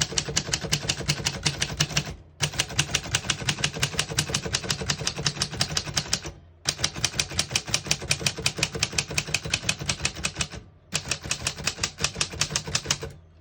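Typing on a 1936 Royal Junior manual portable typewriter: rapid, even keystrokes, several strikes a second, in four runs broken by three short pauses.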